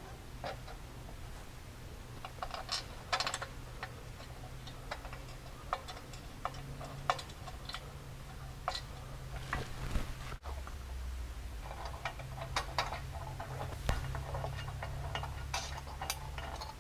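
Light, irregular metallic clicks and taps from hand work on an aluminum skid plate: a bar clamp being slid into line and bolts being started by hand, under a low steady hum.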